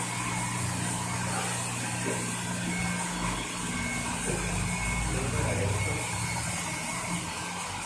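Hair dryer running steadily: rushing air with a motor hum.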